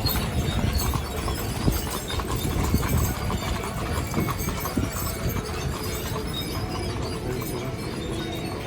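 Hooves of the team of horses pulling a stagecoach clip-clopping steadily over a low, steady rumble.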